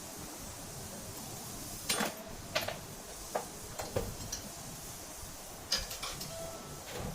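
Metal parts and tools being handled, knocking and clinking about eight times, a couple of the strikes ringing briefly, over a steady hiss.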